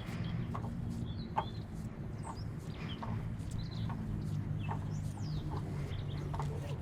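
Birds calling and chirping, many short calls scattered throughout, some sliding in pitch, over a low steady hum.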